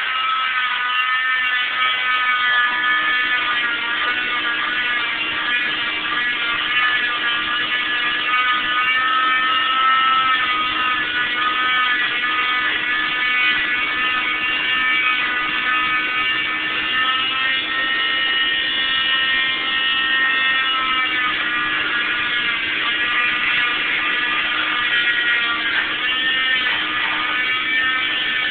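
Electric oscillating cast saw with a vacuum dust-extraction hose, whining steadily as it cuts through an orange fiberglass cast; its pitch wavers and dips briefly a few times near the end as the blade bears into the cast.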